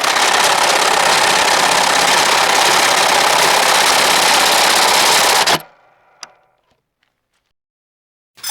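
A money-counting machine running steadily with a dense, fast riffling for about five and a half seconds, then stopping abruptly, with a brief spin-down and a faint click after.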